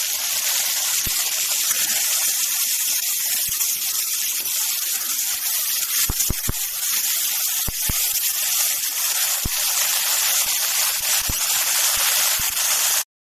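Refined oil sizzling steadily in a kadai as ginger-cumin paste fries with capsicum and chillies. A metal spatula clicks against the pan now and then, most often about six to eight seconds in. The sound breaks off briefly near the end.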